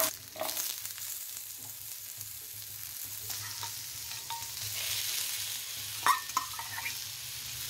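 Oil sizzling in a nonstick frying pan as garlic, green chillies and onion are stir-fried and stirred with a spoon. A couple of short, sharp knocks come about six seconds in, as tomato slices are added.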